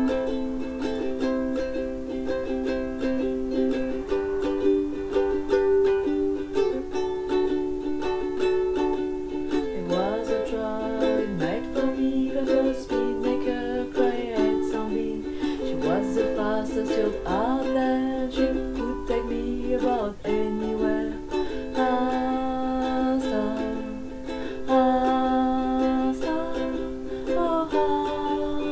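A ukulele strummed in chords, with a woman singing her own song along with it.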